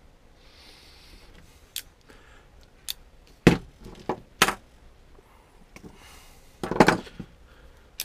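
Hand tools, pliers and a soldering gun, being handled and set down on a wooden workbench: a string of sharp knocks and clacks, the loudest about three and a half and four and a half seconds in, and a short clatter near seven seconds.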